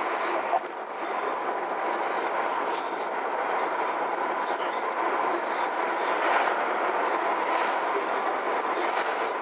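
Steady road and tyre noise with engine hum inside a moving car's cabin.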